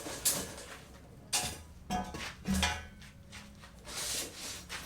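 A handful of irregular knocks and scrapes, like hard objects being handled and set down, with a faint low hum running underneath from about halfway.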